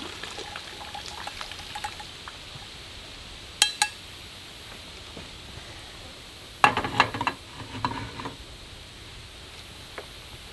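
Small metal cooking pot and mesh strainer clinking together as the water is strained off boiled fish: two sharp clinks about three and a half seconds in, then a louder run of clanks and rattles around seven seconds in.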